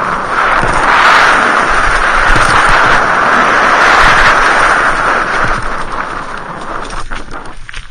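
Wind rushing over the microphone, mixed with the rumble and rattle of riding fast down a leaf-covered trail on a mountain bike. It dies away over the last couple of seconds as the ride slows onto the road.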